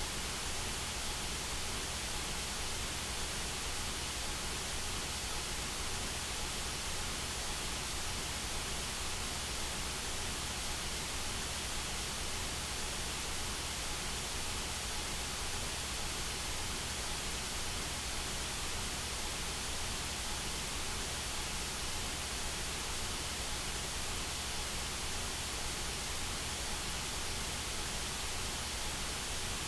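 Steady synthetic white noise: an even hiss spread across all pitches, unchanging throughout, played as masking sound for tinnitus relief.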